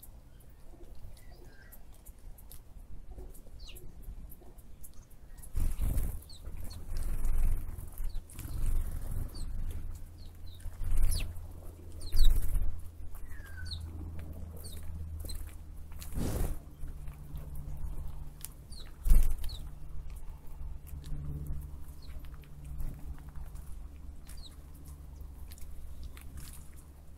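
Scattered short, high bird chirps over a low rumble that rises and falls in gusts, with a few louder bumps.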